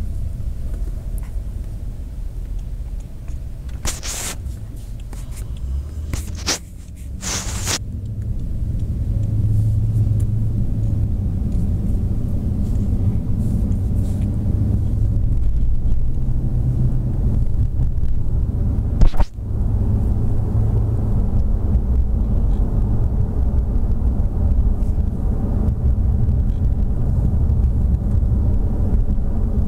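Low steady rumble of a car heard from inside its cabin. Brief scraping noises come about 4 and 7 seconds in as the camera is handled, and there is one sharp knock about 19 seconds in.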